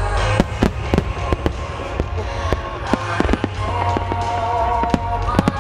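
A rapid, irregular barrage of aerial firework shells from a wide starmine bursting, with sharp bangs coming several times a second and echoing, over steady music.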